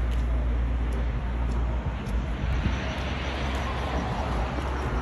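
Steady outdoor street noise, like passing traffic, with a heavy low rumble and a slight swell in the middle.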